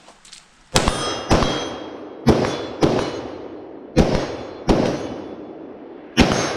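Seven gunshots, fired in three quick pairs and then a single shot near the end, each followed by a long ringing clang as it dies away, typical of steel targets being hit.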